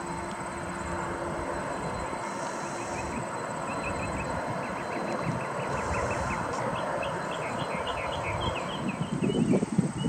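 Distant jet engines of an Airbus A320-family airliner at takeoff power, a steady rumble that slowly swells, with short bird chirps over it. Near the end a louder irregular noise breaks in.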